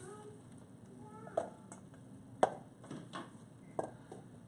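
Kitchen prep: a handful of sharp, irregular knocks and clicks of a knife and dishes on a cutting board, the loudest about two and a half seconds in.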